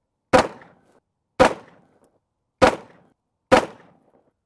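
Four shots from an Arsenal Firearms Strike One 9mm pistol, fired singly about a second apart, each sharp report followed by a short fading echo.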